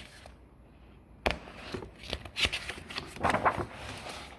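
Paper rustling as a picture-book page is handled and turned: a sharp crackle about a second in, then several soft rustles.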